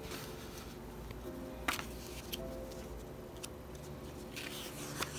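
A CD booklet's paper pages being flipped and handled, with a few sharp light clicks and soft rustles near the end.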